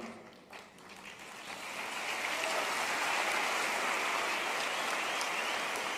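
Audience applauding in a large hall, swelling in over the first second or two and then holding steady.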